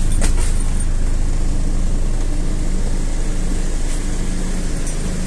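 Inside a MAZ-206 city bus under way: the diesel engine running steadily with a low hum under road noise, with a couple of brief rattles.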